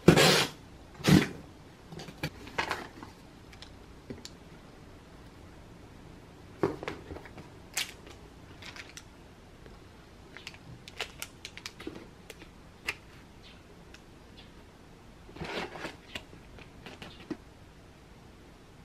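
Cardboard delivery box being opened: packing tape slit and pulled with a few sharp rips in the first few seconds, then cardboard flaps and packaged food handled with scattered clicks, taps and a burst of plastic crinkling.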